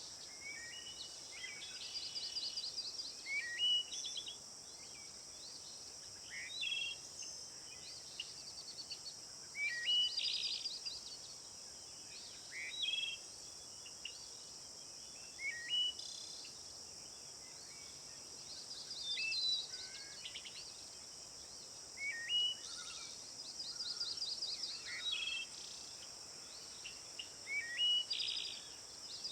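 Songbirds calling again and again, a short call or burst every two to three seconds, each a quick rising note and then a fast trill. Under them runs a steady, high insect drone.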